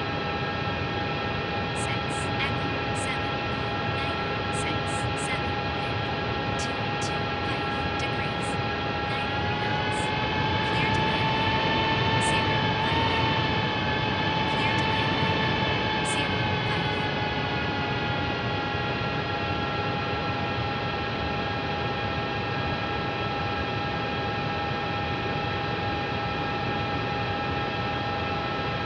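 Airbus A321neo cockpit noise during taxi: a steady rush with the engines' whine, which rises a little about ten seconds in and eases back down a few seconds later as thrust is added and then reduced. Faint light ticking is heard over it in the first half.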